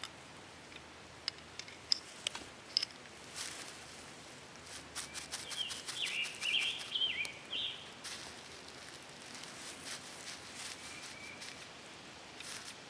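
Ferrocerium rod being struck with a scraper: a few single sharp scrapes, then a quicker run of rasping strokes throwing sparks onto bird's-nest tinder.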